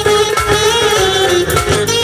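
Live band with keyboards, drum kit and electric guitar playing Balkan folk dance music loudly through large PA speakers, an ornamented lead melody wavering over a steady drum beat.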